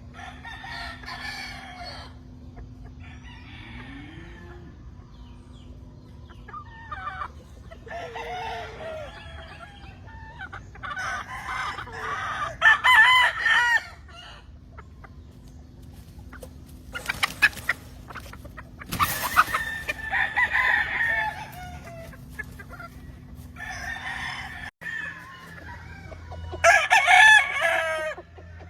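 Roosters crowing one after another, about eight long crows spread through the stretch, with some clucking between them.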